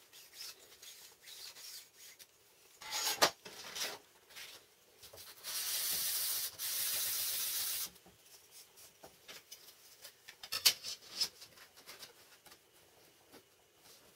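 A small wooden block rubbed on a sheet of sandpaper laid flat on the bench: about two seconds of steady sanding with a brief break in the middle. Sharp knocks and clicks from handling the wood and steel ruler come before and after it, the loudest about three seconds in and again near the eleven-second mark.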